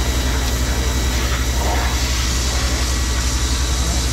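A combustion engine running steadily at a constant speed, with a fast, even throb and a thin, steady high whine over it.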